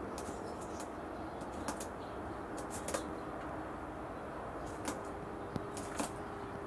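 Scattered sharp taps and clicks as a Eurasian jay steps and pecks on a plastic garden table, in small clusters, with a brief flap of its wings about six seconds in. A faint steady hum and outdoor background noise run underneath.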